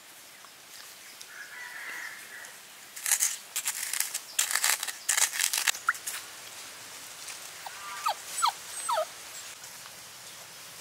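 A stick scraping and knocking inside a coconut-shell bowl as pounded green leaves and water are stirred into paint, in a quick run of sharp scrapes. Later come a few short, high, downward-sliding whimpers from a young puppy.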